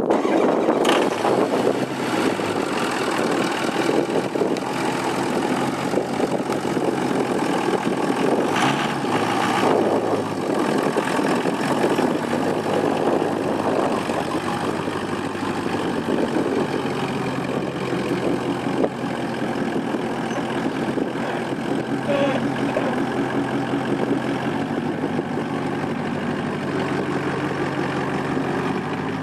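Ford 6.0L V8 diesel engine of a 2003 F350 Super Duty pickup idling steadily, with a couple of short knocks about nine seconds in.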